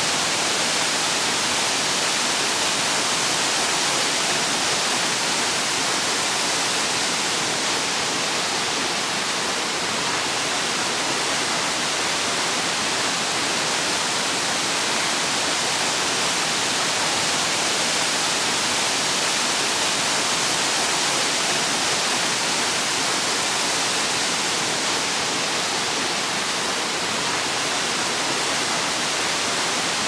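Waterfall: water falling and splashing in a steady, even rush, hissy and bright rather than deep.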